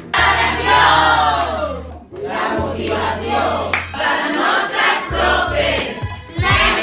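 A group of teenagers shouting short Catalan phrases in unison, in several takes cut one after another. Background music with a low bass line runs under the voices.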